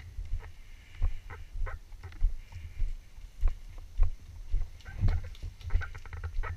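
Walking footsteps, close and muffled, almost two steps a second, with small clicks and rustles between the steps.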